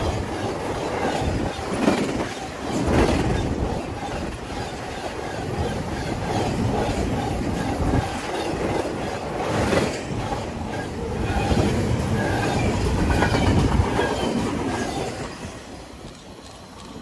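Freight train cars rolling past close by, their steel wheels clattering and knocking over rail joints. The noise falls away about a second before the end.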